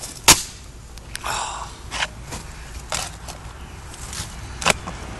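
Steel shovel blade digging into soil: several sharp chops, the first the loudest, and a short scrape of the blade through dirt about a second in.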